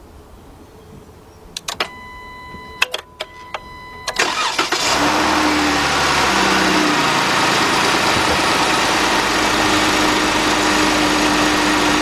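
A few clicks and a steady electronic warning tone. Then, about four seconds in, the 2012 Dodge Durango's 3.6-litre Pentastar V6 cranks, catches and settles into a steady idle from cold. This is an engine logging a cylinder 3 misfire code (P0303).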